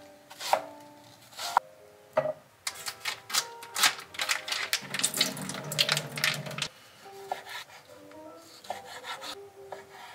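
Chef's knife knocking through winter melon onto a wooden cutting board a few times, then several seconds of dense scraping and rustling. Midway, liquid from a plastic pouch splashes into a stainless steel sink. Soft background music plays underneath.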